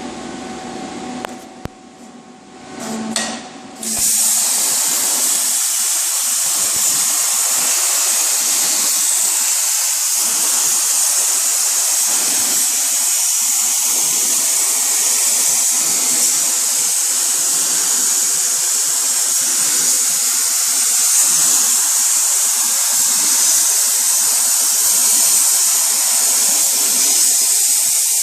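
Plasma cutter on a CNC cutting table: a low hum with a few short clicks, then about four seconds in the arc strikes and a loud, steady hiss goes on as it cuts.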